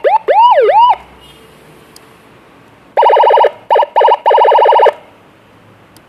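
Seven-tone electronic siren module through a horn speaker being switched between tones: about a second of yelp, rising and falling quickly, then a pause. From about three seconds in comes roughly two seconds of a very rapid warble with a brief break in it.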